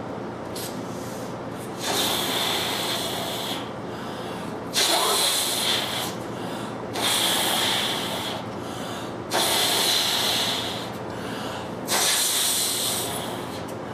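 A latex balloon being blown up by mouth: five long breaths blown into it, each about a second and a half, with quieter inhales between.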